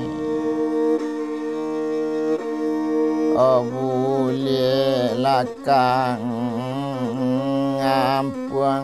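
Rabab Pesisir Selatan, the Minangkabau bowed fiddle, playing long held notes that step to a new pitch about one and two and a half seconds in. About three and a half seconds in, a man's voice joins, singing a wavering, ornamented line over the fiddle.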